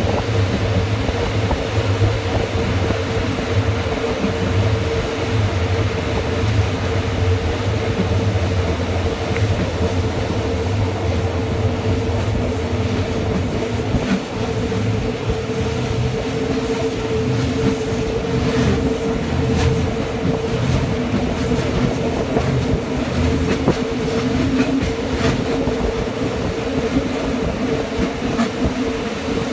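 Red Rhaetian Railway electric train running past with a steady hum and rumble, with a few clicks from the wheels on the rails about two-thirds of the way through.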